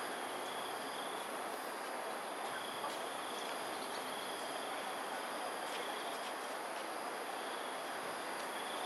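Insects calling: a steady high-pitched trill with a shorter high call repeating every second or two, over a constant background hiss.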